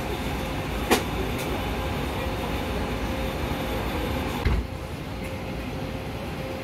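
A MAN Lion's City city bus running close by, giving a steady hum. A sharp click comes about a second in, and a low thump a little after four seconds, after which the noise is a little quieter.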